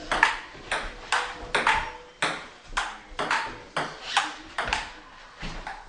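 A table tennis rally: the ping-pong ball clicks sharply and evenly off the paddles and the table, about twice a second.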